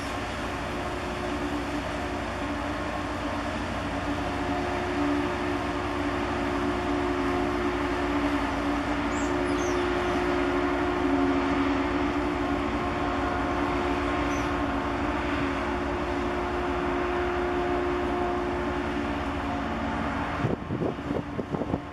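Cable-laying ship's engines and machinery droning steadily as it passes close by, a hum with several held tones over a low rumble. Near the end the hum drops away and wind buffets the microphone in uneven gusts.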